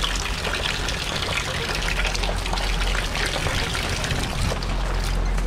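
Rain falling into a plastic rain barrel: a steady splashing and pattering on the water collected inside.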